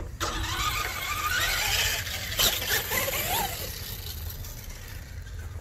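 RC monster truck's motor and drivetrain whining as it is driven, the pitch rising and falling with the throttle, with a sharp knock a little past halfway.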